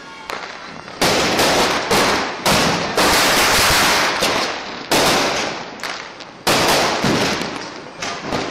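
Firecrackers going off: about eight or nine loud bangs at irregular gaps of half a second to two seconds, each trailing off slowly over a second or so.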